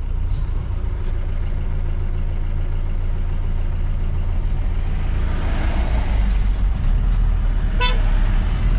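Jeep engine pulling steadily along a rough unpaved mountain road, heard from inside the cab as a continuous low rumble with road noise. A brief high chirp sounds near the end.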